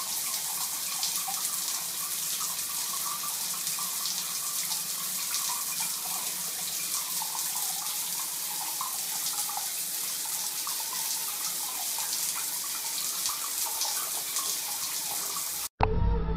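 Water running steadily from a bathroom sink tap, an even hiss, as a cat drinks at the stream. Near the end it cuts off abruptly and background music takes over.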